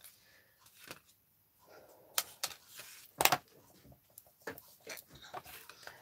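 A few light clicks and taps from a plastic alcohol marker and card being handled on a desk, the sharpest about three seconds in.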